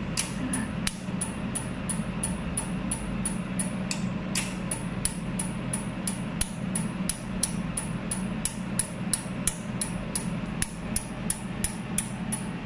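A 100 W pulsed jewelry laser welder firing repeatedly at a card held under its nozzle, each pulse a short sharp snap, about three a second, over a steady machine hum.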